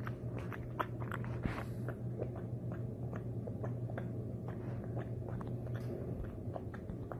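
Young wallaby chewing food close to the microphone: irregular small crunches and wet mouth clicks, several a second, over a steady low hum.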